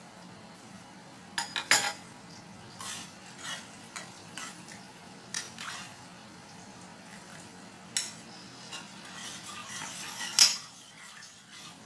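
Wooden spatula and metal spoon clinking and scraping against a frying pan while a sweet-and-sour sauce is stirred. The clinks are scattered, with a cluster about one and a half seconds in and the loudest near the end.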